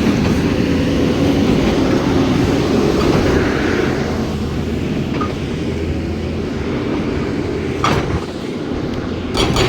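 Excavator's diesel engine running steadily, with a single sharp knock about eight seconds in.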